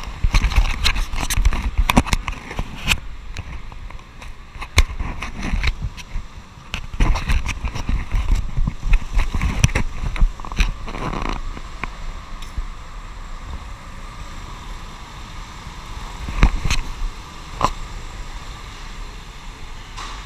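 Irregular knocks, rattles and crackles over a low rumble, the sound of a camera being jostled and handled, densest in the first half and thinning out after about twelve seconds.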